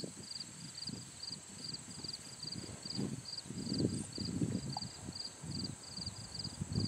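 Insects chirping in a quick, even pulse of about three or four chirps a second over a steady high insect drone. Soft low scuffs and thumps come and go over it, loudest about three to four seconds in.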